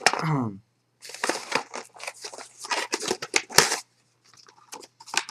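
Paper and cardboard packaging being handled, rustling and crinkling in a quick run of crackles and scrapes for about three seconds, then a few fainter ticks near the end.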